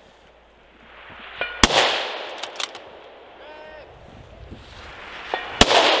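Two precision-rifle shots about four seconds apart, each a sharp crack followed by a long echo rolling back from the surrounding forest.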